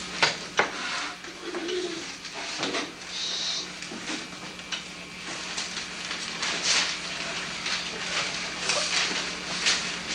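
Classroom room noise: scattered knocks, shuffles and rustles over a steady low hum.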